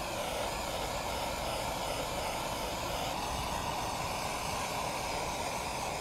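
Handheld gas torch burning with a steady roar as its flame heats heat-shrink tubing over a crimped wire splice.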